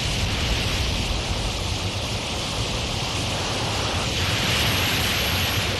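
Steady rushing noise of sea waves and wind, with a low rumble underneath.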